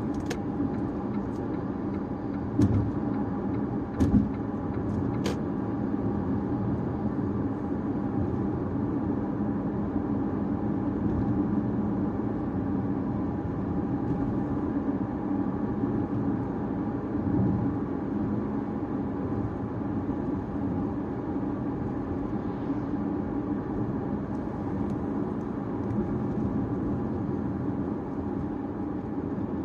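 Caoa Chery Tiggo 5x on the move: steady engine and road noise. There are a few sharp knocks in the first few seconds, the two loudest about three and four seconds in.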